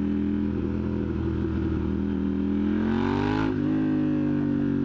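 KTM Duke 890R parallel-twin engine running through a catless exhaust; about three seconds in the revs climb briefly under throttle, then drop off suddenly and settle back to a steady note.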